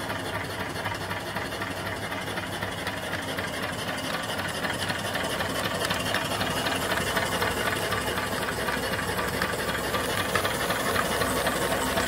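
A 3–4 horsepower steam engine mounted on a vertical fire-tube boiler, running steadily with a rapid, even beat, and steam hissing.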